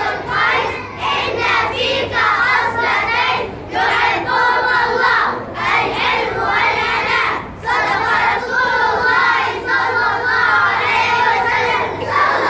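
A group of children singing together in unison, loud, in phrases broken by short pauses.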